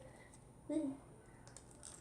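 Mostly quiet, with a brief hum of a voice a little under a second in and a few faint soft clicks of slime being handled near the end.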